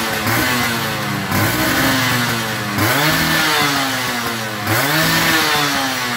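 Yamaha Force 1 110cc two-stroke motorcycle engine revved through a chrome standard-racing exhaust: four quick throttle blips, each a sharp rise in pitch that falls back toward idle.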